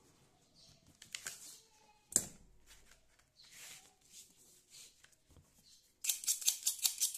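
Shoemaker's knife cutting through duplex cardboard along a marked pattern line: a few faint scrapes and a knock about two seconds in, then near the end a loud, rapid crackling of the blade, about ten ticks a second.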